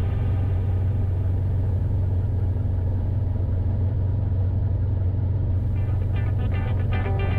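Steady low drone of a light aircraft's engine and propeller in flight, heard from inside the cabin. Guitar music comes in near the end.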